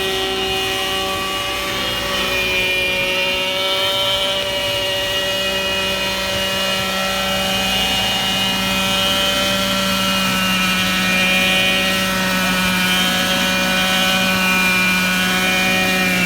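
Petrol-engined RC helicopter's 27cc engine and rotor running at a steady high pitch that wavers slightly, as in a hover. Right at the end the pitch begins to fall as the engine winds down after landing.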